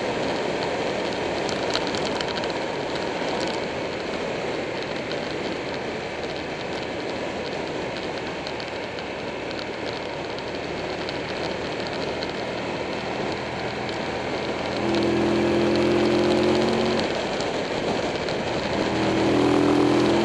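Buell 1125R motorcycle riding at speed: heavy wind noise on the microphone over the engine and tyres. A louder, steady engine tone comes in about fifteen seconds in and again near the end.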